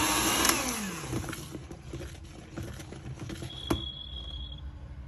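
Electric hand mixer whirring as its beaters whip cake batter in a bowl, switched off about half a second in, its pitch falling as the motor winds down. A sharp click about three and a half seconds in.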